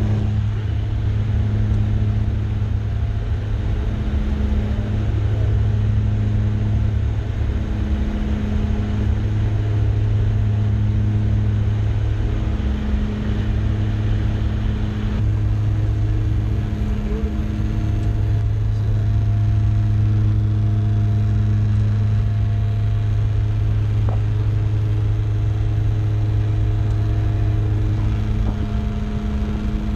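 Twin-engine turboprop's engines and propellers droning steadily in the cabin, with a slow regular throb every second or two as the two propellers beat against each other.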